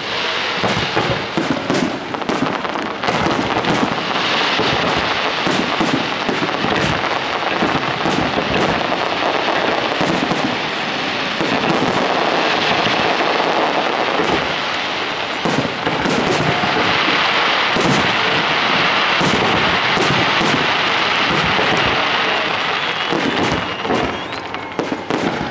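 Fireworks display: aerial shells bursting in many sharp bangs, one after another, over a dense, continuous crackle that runs without pause.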